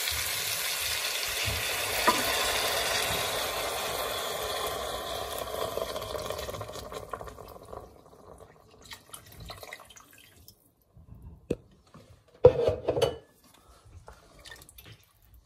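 Chicken broth being poured into a hot pot of sautéed vegetables and rice: a loud sizzling hiss and rush of liquid that dies away over about the first seven seconds as the pot fills. Then a few light clinks and knocks against the steel pot, the loudest about twelve and a half seconds in.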